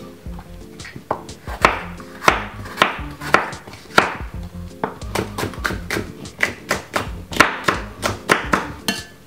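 Knife chopping bell peppers on a wooden chopping board: a run of sharp, irregular strikes that come quicker in the second half, over background music.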